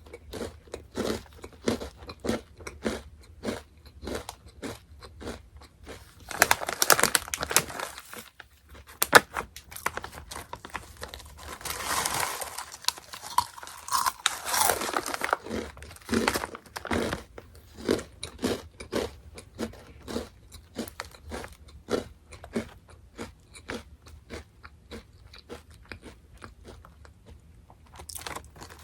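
Close-up chewing of Orion Mala Chicken Pop, a crunchy snack: a steady run of crunches about two to three a second. There are a couple of louder, denser stretches of crackling, about a quarter of the way in and near the middle.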